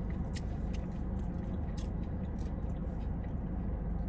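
Close-up chewing with small, sharp wet mouth clicks every half second or so, over a steady low rumble.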